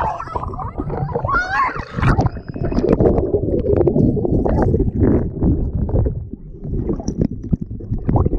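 Water sloshing and gurgling close to the microphone, with a brief high voice about a second and a half in.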